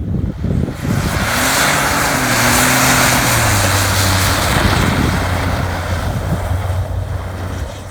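Ford F-150 EcoBoost twin-turbo V6 pulling hard at high revs with traction control off while the tyres spin in deep snow, a loud hiss of spraying snow over the engine note. The engine note drops slightly midway and the sound fades near the end.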